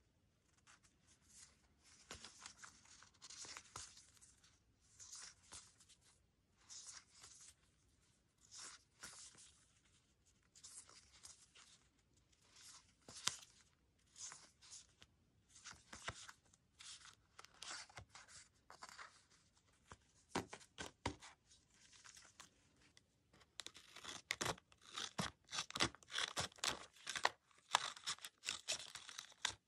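Paper rustling in short separate bursts as sheets of paper stickers are handled and flipped. Near the end it turns louder and denser: scissors snipping and crunching through a paper sticker envelope.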